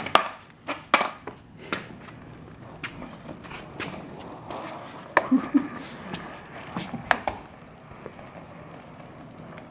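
Small wooden micro skateboard on Roller Derby torsion-beam roller-skate trucks rolling over a concrete floor: a steady low rumble of the little skate wheels, broken by a dozen or so sharp clacks and knocks of the board and wheels.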